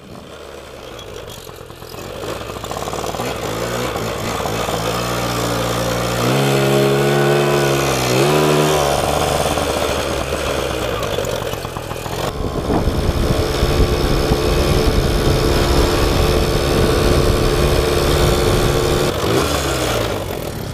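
Two-stroke Yamaha moped engine running under way, its pitch rising and falling with the throttle and dropping near the end, over a steady rushing noise. The rider finds the bike sluggish and due for a tune-up.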